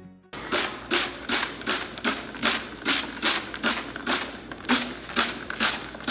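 Hand-held trigger spray bottle misting water onto a houseplant's leaves: a steady run of short hissing squirts, about two to three a second.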